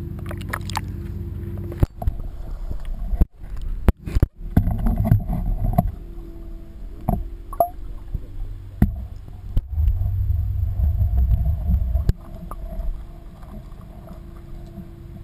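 Water sloshing and gurgling around a waterproof camera at a pond's surface, with knocks and a few sudden dropouts as it goes under, then the uneven, muffled rumble of water heard from below the surface.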